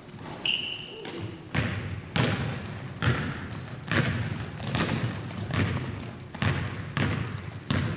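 Basketball dribbled on a hardwood gym floor, about two bounces a second, each bounce echoing around the hall.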